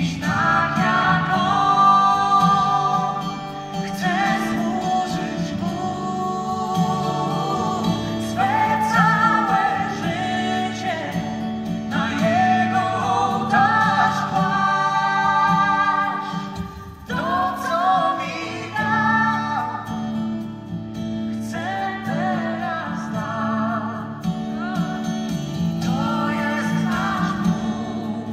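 Live concert music: a woman sings a melody of long held notes over a steady instrumental accompaniment, picked up from far back in an arena audience.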